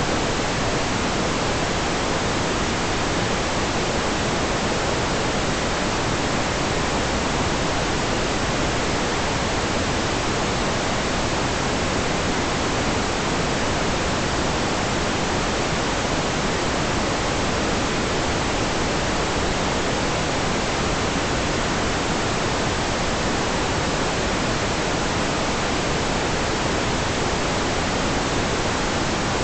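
Steady, loud, even hiss with no changes and no distinct sounds in it: the self-noise of an infrared trail camera's microphone.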